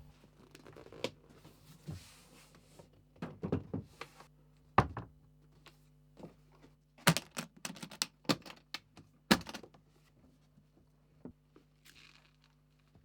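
A run of irregular sharp knocks, taps and clicks, scattered and uneven, thickest through the middle and thinning out near the end, over a faint steady low hum.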